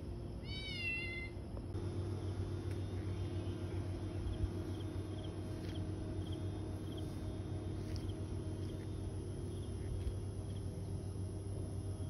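A cat meows once, a short high-pitched mew that rises and falls, about half a second in. A steady low hum follows, with faint regular chirping.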